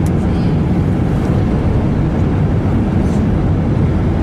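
Steady, loud low rumble of an Etihad Airbus A320 in flight, the engine and airflow noise heard inside the cabin.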